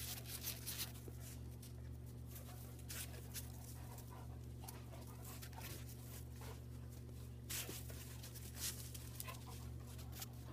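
Dogs panting and moving about in a pile of snow, with a few short scuffing noises scattered through. A steady low hum runs underneath.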